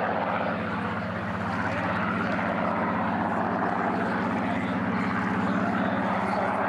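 Piston engine and propeller of a single-engine WWII fighter droning steadily as it flies overhead in a display.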